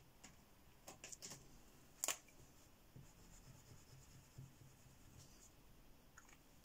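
Faint rubbing of a Shuttle Art water-based gel crayon drawn across paper to lay down a grey swatch, with a few light clicks, the sharpest about two seconds in.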